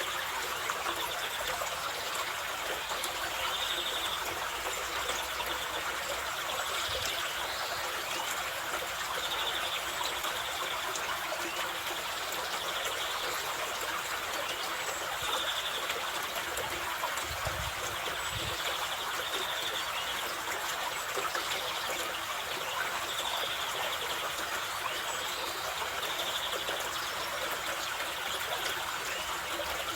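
Mountain river in the Carpathians, its water rushing steadily. A small bird gives short high calls every two to three seconds.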